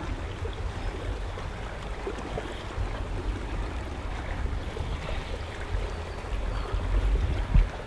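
Wind buffeting the microphone as a low rumble over a soft hiss of lapping water, with a stronger gust-like thump near the end.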